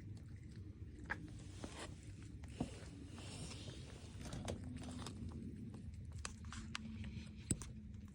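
A cat biting and chewing a bonito treat, with small scattered clicks and crunches.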